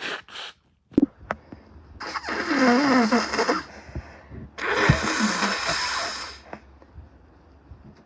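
A person blowing their nose forcefully twice, each honking blow lasting about a second and a half with a wavering pitch inside it. Two short breathy bursts come near the start.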